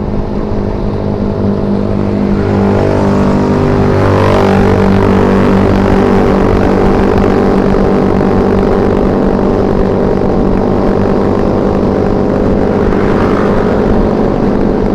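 Yamaha Mio scooter's single-cylinder four-stroke engine running under way at a steady speed, heard from the rider's seat over road and wind noise; it grows louder over the first few seconds as the scooter picks up speed, then holds steady.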